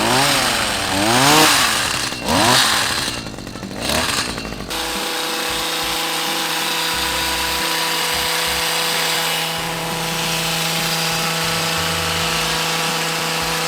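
Battery-powered toy power tool playing its electronic motor sound: a warbling whine that sweeps up and down, which switches abruptly, about five seconds in, to a steady buzzing drone.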